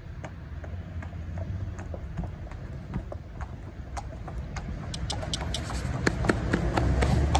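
Several horses' hooves clip-clopping on brick paving, the steps getting louder and more frequent toward the end as the horses come closer. A steady low hum of road traffic runs underneath.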